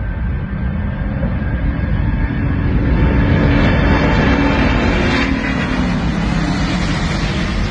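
Twin-engine widebody jet airliner at takeoff power: a loud, deep jet rumble with a faint engine hum that swells as the aircraft rolls past and lifts off, then eases slightly.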